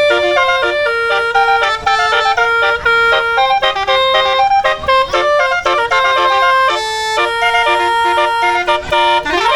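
Bus musical air horn (basuri / telolet type) playing a fast melody of short, stepped notes, sometimes several at once. Near the end it sweeps up in pitch and back down.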